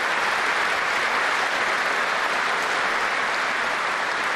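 Large seated audience applauding, a steady, dense clapping.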